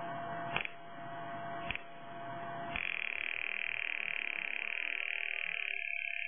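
Small loudspeaker driven by a simple audio oscillator (buzzer) built around a bipolar transistor connected the wrong way, giving a noisy buzzing tone. Two clicks come in the first two seconds, and about three seconds in the sound changes to a steady high-pitched whine with a fast flutter.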